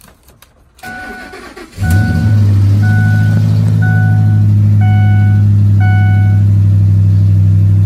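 A 2004 Ford F-150 pickup's engine turns over on the starter for about a second, catches and settles into a steady, loud idle. Over it a dashboard warning chime dings about once a second, six times.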